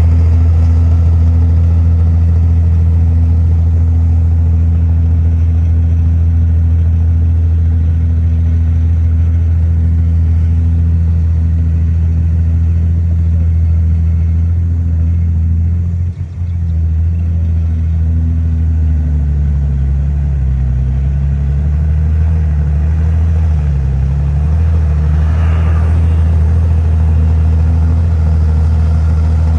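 Komatsu bulldozer's heavy diesel engine running steadily at a loud, deep note. Just past halfway the sound drops out for a moment, and later the engine note dips and wavers as it takes on load.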